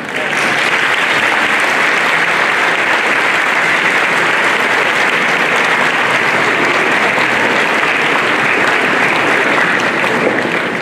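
Large audience clapping steadily; the applause breaks out suddenly and keeps going.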